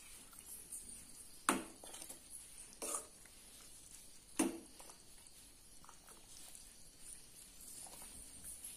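Metal spoon stirring thick broken-wheat porridge in a metal pot, faint, with three short knocks of the spoon against the pot about a second and a half apart.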